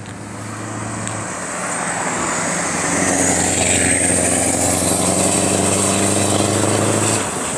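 Semi-truck's diesel engine running under load as the truck passes close by: a steady low note that grows louder over the first few seconds and stays loud, with a high thin whistle above it that dips and then rises again.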